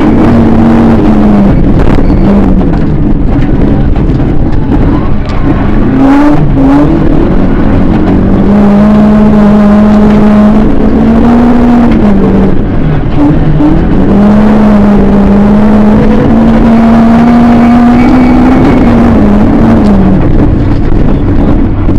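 Nissan rally car's engine heard from inside the cabin at high revs on a gravel stage. The pitch drops and climbs again several times, around 2, 6, 13 and 19 seconds in. A steady rush of tyre and gravel noise runs underneath.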